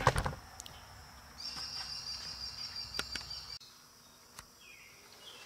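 A burst of sharp metallic clicks as a valve spring is handled, then a steady high-pitched thin trill that drops fainter about halfway through, with a few isolated ticks.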